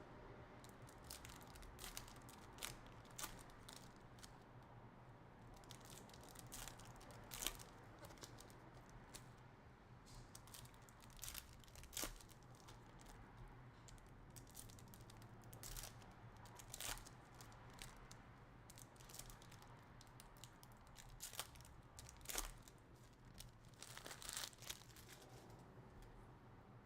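Faint tearing and crinkling of foil hockey-card pack wrappers being opened, with scattered sharp crackles and rustles.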